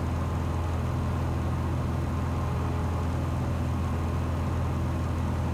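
Cessna 182's piston engine and propeller droning steadily in cruise, heard inside the cabin as an even low hum.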